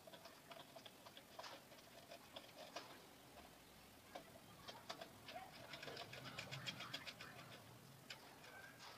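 Faint, scattered clicks and taps from hands working on an electrical panel board of miniature circuit breakers, with a quick run of ticks about six seconds in.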